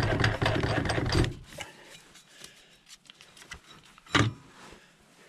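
Metal parts of a 1989 Yamaha Moto 4 YFM350ER's clutch assembly rattling and scraping as it is worked off its shaft by hand, loud for about the first second, then light clicking. A single sharp metal clank comes about four seconds in.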